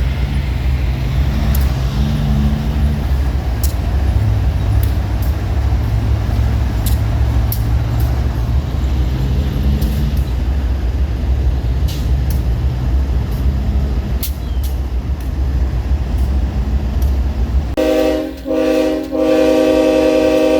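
GE diesel-electric freight locomotives running with a heavy, steady diesel rumble. Near the end the multi-chime air horn sounds two short blasts, then a long one that is still going at the end.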